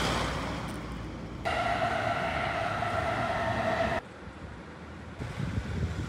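Train passing on an elevated railway line, with a steady high whine that starts about a second and a half in and cuts off abruptly near four seconds. A car's low engine rumble rises near the end.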